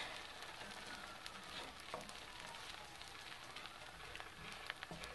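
Scrambled eggs frying faintly in olive oil in a pan on medium heat, with a few light scrapes and taps of a wooden spatula moving them around.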